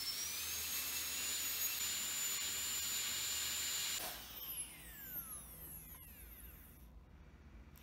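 High-speed dental handpiece spinning a bur to shape a composite filling on a front tooth. A high steady whine winds up, runs for about four seconds, then cuts off and winds down in falling tones over the next few seconds.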